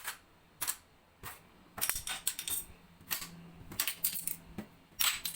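Plastic magnetic alphabet letters clacking as they are handled on a fridge door: irregular sharp clicks, some single and some in quick clusters.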